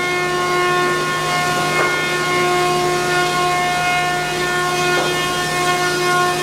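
Planer-moulder running Eastern white pine boards into tongue-and-groove flooring: a steady high whine from the spinning cutterheads and motors over a rushing hiss, with a couple of faint knocks of wood about two and five seconds in.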